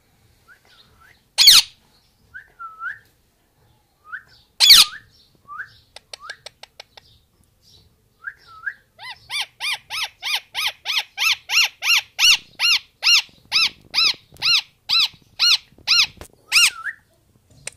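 Rose-ringed parakeet calling: two loud shrill screeches a few seconds apart with short soft chirps between them, then a long run of rapid repeated calls, about three a second, that stops shortly before the end.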